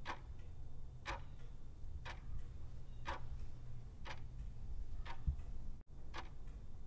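Clock-ticking sound effect, about one tick a second, counting down the quiz timer.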